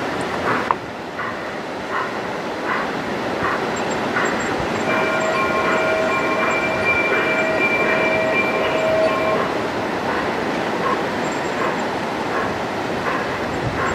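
Large-scale garden railway train running on its outdoor track, a steady rolling noise with a regular click about every three-quarters of a second. About five seconds in, a long, steady multi-note horn blast sounds for about four and a half seconds.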